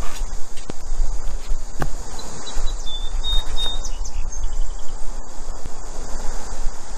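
Steady high-pitched insect chorus, typical of late summer, over a low rumble, with a few sharp clicks.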